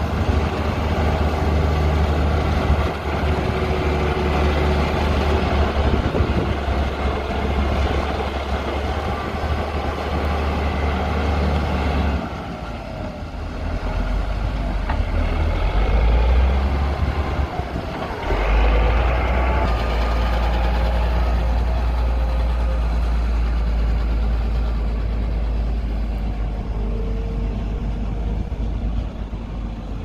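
Caterpillar motor grader's diesel engine running under load as it grades sand, a steady deep rumble that dips for a few seconds about twelve seconds in and then picks back up.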